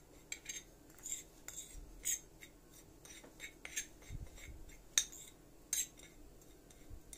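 Metal spoon stirring ground spices on a ceramic plate: irregular light scrapes and clinks of spoon against plate, the sharpest about five seconds in.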